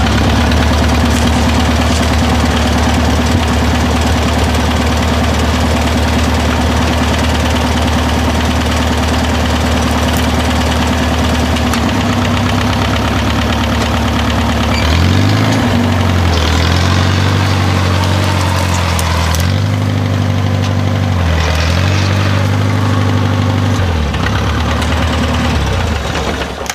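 Farmall Cub tractor's small four-cylinder flathead engine idling steadily, then from about fifteen seconds in its speed rising and dipping several times as it comes under load, pulling a tree stump out by its roots.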